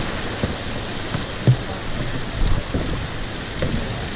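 Water splashing steadily in a live-bait well, a rain-like patter, with a few dull knocks, the loudest about a second and a half in.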